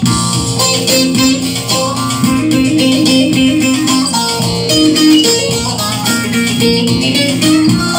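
Bağlama (long-necked Turkish saz) plucked with a plectrum, playing a quick run of notes as the instrumental introduction to a Turkish folk song.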